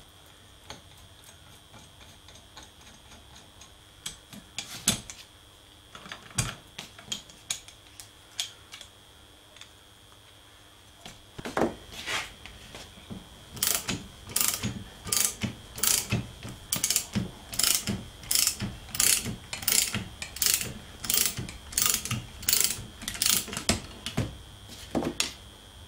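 Ratchet spanner turning the nut on a threaded-bolt puller to draw a taper roller bearing down onto a lathe spindle. A few scattered clicks and knocks come first, then from about halfway a steady run of ratchet clicks, a little under two a second, as the bearing is pressed home.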